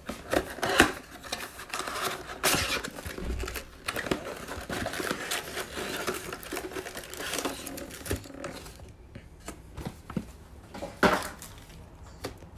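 A cardboard trading-card box being opened by hand and its wrapped packs pulled out and set down on a table: rustling and scraping of cardboard and pack wrappers, with scattered light knocks and a couple of louder taps, about a second in and near the end.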